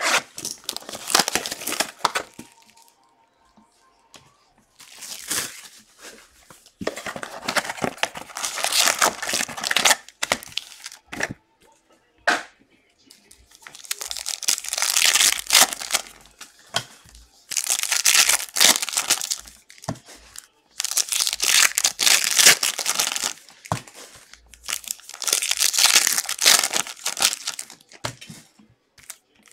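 Plastic wrappers of 2022 Score football card packs crinkling and tearing as the packs are ripped open by hand, in about eight bursts of a few seconds each with short pauses between.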